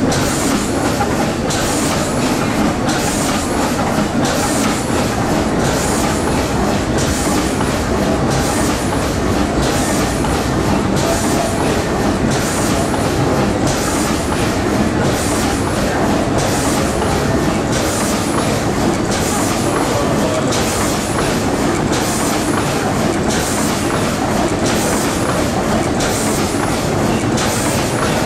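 1919 Worthington two-cylinder, double-acting natural gas pumping engine running steadily, with a sharp beat about once a second.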